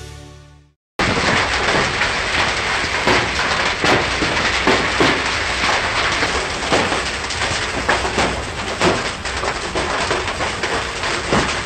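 Music fades out, then about a second in a heavy hailstorm cuts in: hailstones and rain pelting the ground in a dense, steady hiss, with many sharp hits from individual stones.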